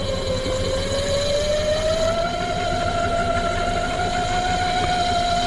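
Steady motor whine on a fishing boat, slowly drifting a little up in pitch, over a constant low engine rumble.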